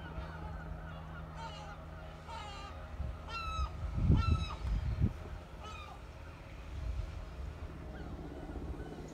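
A bird calling about five times, with short, harsh, downward-bending honking notes, most of them in the first half. Under it, low wind rumble on the microphone gusts loudest about four seconds in.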